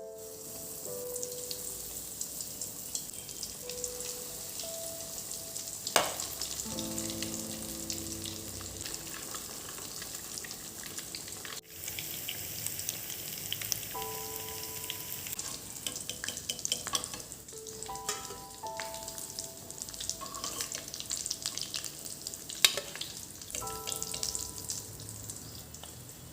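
Steady crackling hiss, like food frying, with a few sharper clicks and soft background music notes.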